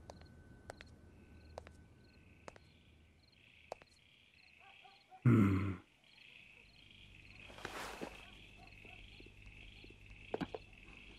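Night-time ambience with crickets chirping in a steady pulsing trill, broken about five seconds in by one short, loud, low animal call.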